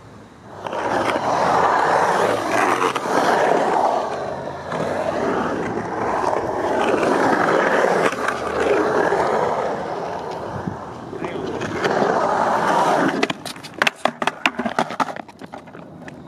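Skateboard wheels rolling on a concrete bowl: a loud rush that swells and fades in long waves as the board carves up and down the walls. About 13 seconds in, a quick run of sharp clacks and knocks.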